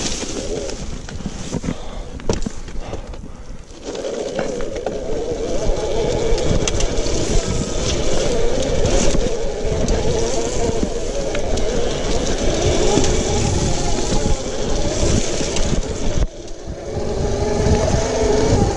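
OSET 24.0 electric trials bike riding a rough forest dirt track: tyre and drivetrain noise with frequent rattles and knocks over a wavering whine. The sound is quieter for the first few seconds, then steadier and louder, with a brief drop in the last few seconds.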